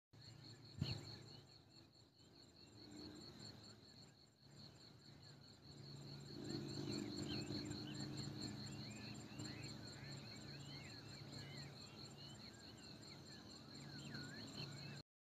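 Insects trilling in a steady, fast-pulsing high tone, faint and continuous, with other short chirps joining about six seconds in. A single sharp knock sounds about a second in.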